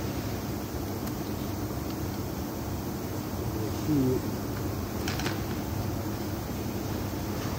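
Steady fan-like workshop background noise, with a few light clicks of small relay parts being handled as a coil is fitted back into a forward/reverse relay. A short wavering tone comes about four seconds in.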